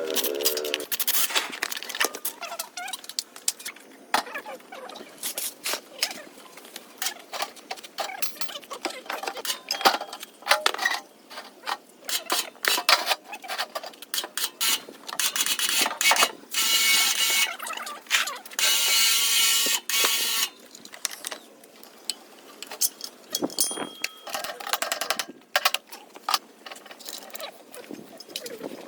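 Irregular metallic clicks, knocks and rattles of hand-tool work, with two longer whirring stretches of a second or two, the second about 19 seconds in.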